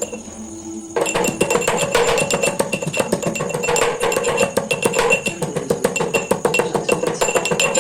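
Rapid pestle strikes in a metal mortar (hamandista), each blow ringing with a metallic tone, crushing spices; the pounding pauses briefly about a second in.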